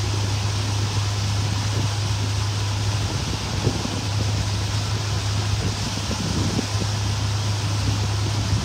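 Boat engine running steadily with a constant low hum, mixed with wind blowing across the microphone.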